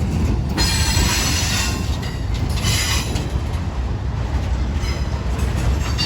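Norfolk Southern manifest freight train rolling past with a steady low rumble, its wheels squealing in several short bursts that come and go.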